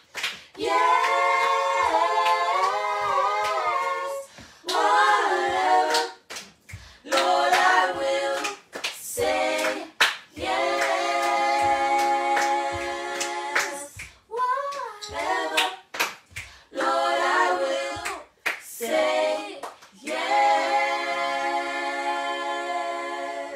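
A small group of voices singing a worship song a cappella, long held notes broken by short breaths, with sharp claps now and then.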